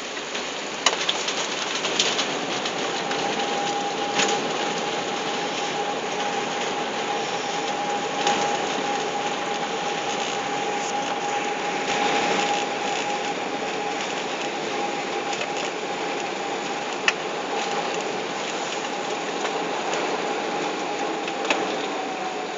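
Cabin noise on the upper deck of an Airbus A380 taxiing after landing: a steady rush of engine and airframe noise. A steady whine comes in about three seconds in and holds until it dips and fades near the end, and a few sharp knocks and rattles sound now and then.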